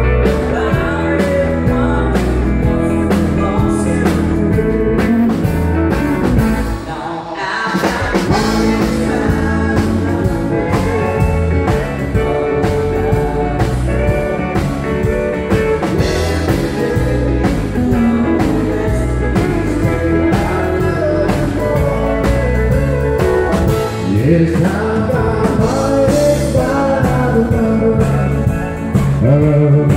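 Live country band playing loudly: electric guitar, pedal steel guitar and drum kit, with a singer at times. The music drops briefly about seven seconds in, then carries on.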